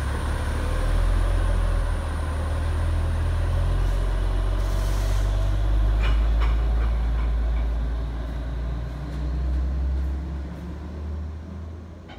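Diesel truck engine idling steadily with a deep rumble, with a short hiss of air about five seconds in and a few light clicks just after, fading out near the end.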